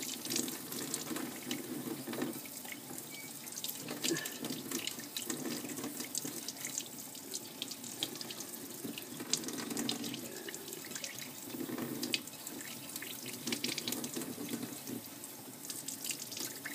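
Cold water stream from a StarStream ultrasonically activated cleaning nozzle pouring over a greasy coil spring and splashing into a stainless steel sink. The splashing swells and eases every second or two, with small drips and spatters throughout.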